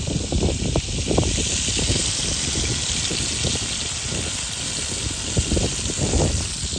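Strong gusty wind buffeting the microphone, a deep uneven rumble with irregular thumps, under a steady high hiss that fades near the end.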